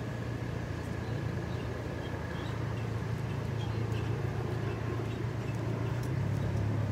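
Engines of a line of utility bucket trucks and pickups running together, a steady low drone that grows slightly louder.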